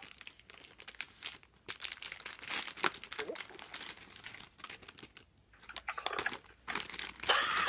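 Plastic packaging crinkling and rustling in irregular bursts as a computer's power cord is unwrapped, with a lull about two-thirds of the way through.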